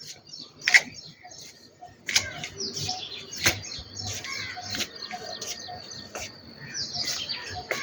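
Many small birds chirping at once, sparrows among them, with sharp high chirps and a few quick falling whistles overlapping. It is sparser for the first couple of seconds, then busier.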